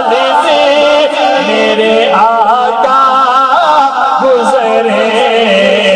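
Men singing an Urdu–Punjabi naat into microphones over a loudspeaker system. The lead voice sings long, ornamented, wavering lines while a backing voice holds a steady low note underneath.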